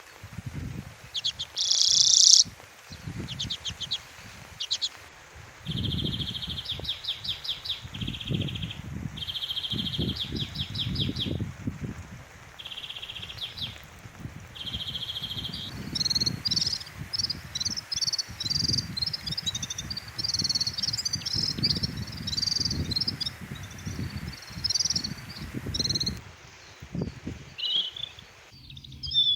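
Songbirds singing: short trilled phrases about a second long, repeated several times, then a busier, continuous twittering from about halfway. A low, uneven rumble runs underneath.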